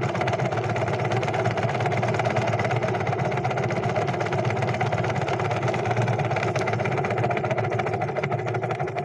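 Seaflo 12V diaphragm pressure pump of a Facelift window-cleaning system running with a steady, fast-pulsing hum while its controller button is held down. The controller won't hold its pressure setting, so the pump keeps running only while the button is pressed.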